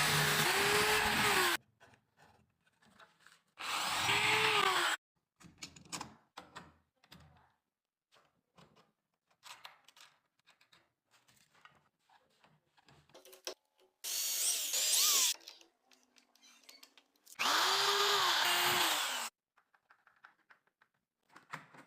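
Power drill boring into a wooden door in four short bursts, its motor pitch rising and falling with the trigger each time. Light knocks and handling clicks come between the bursts.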